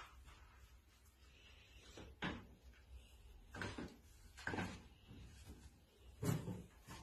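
About five scattered soft knocks and bumps, the loudest near the end.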